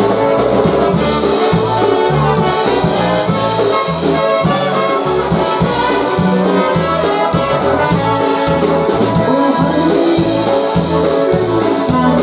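Live polka band playing a polka, brass carrying the melody over a steady oom-pah bass beat of about two strokes a second.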